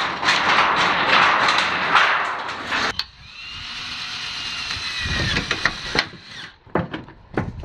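Thin corrugated sheet steel being worked by hand, a dense crackling and scraping; about three seconds in it breaks off and a cordless drill runs with a whine that slowly falls in pitch as it bores into the sheet-metal pipe cover, followed by a few sharp clicks.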